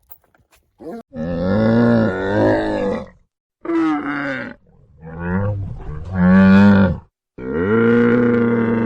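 A large animal calling: four long, low, drawn-out calls with short pauses between them, the last one held steady.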